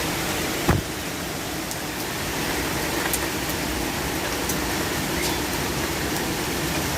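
Heavy rain mixed with hail: a steady rushing downpour with scattered sharp ticks of hailstones striking. One louder knock comes just under a second in.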